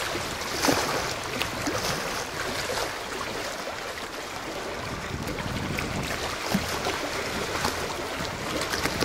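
Water lapping and splashing: a steady wash with scattered small splashes.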